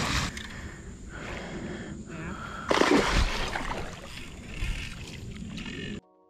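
Hooked fish thrashing and splashing at the water's surface close by, loudest about three seconds in, with excited voices around it; the sound cuts off abruptly near the end.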